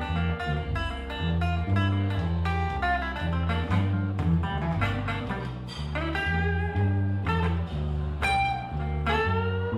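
Acoustic guitar playing an instrumental blues lead over a double bass plucking a steady line of notes, about two a second. Near the end the guitar bends its notes upward.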